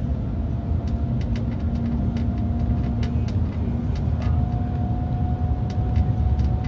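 Train running at speed: a steady low rumble with a faint whine that steps slightly higher about four seconds in, and scattered light clicks.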